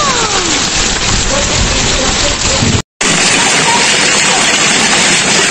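Hailstorm: hail and heavy rain pelting the ground in a dense, steady hiss. It cuts out completely for a moment about three seconds in, then picks up again just as heavy.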